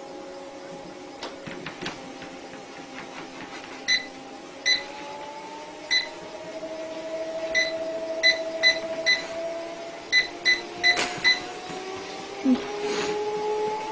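Treadmill motor whining steadily under a moving belt, its pitch rising twice as the belt speeds up. The control panel gives about a dozen short electronic beeps in runs, as its buttons are pressed.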